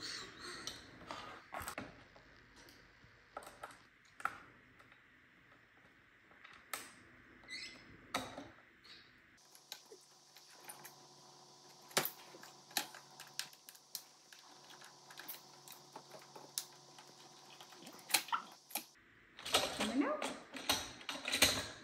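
Scattered light clicks and taps of a screwdriver and plastic parts being handled while an iRobot Roomba 960 robot vacuum is taken apart, with a busier run of clicks and scrapes near the end.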